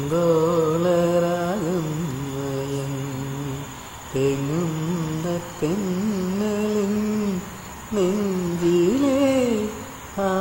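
Carnatic-style vocal music: a single voice sings long held notes with wavering, gliding ornaments, pausing briefly every one to two seconds.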